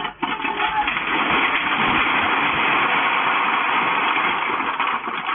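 Strong earthquake shaking heard through a security camera's tinny microphone: a loud, continuous, crackling rattle that lasts about five seconds while a wooden outbuilding collapses, then dies away.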